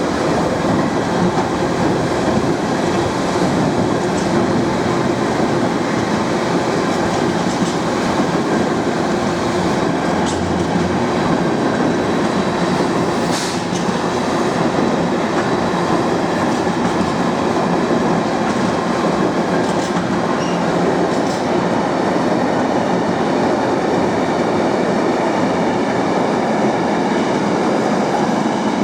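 Passenger train running steadily along the track, heard from inside the carriage: a constant rumble of wheels and running gear with a few faint rail-joint clicks.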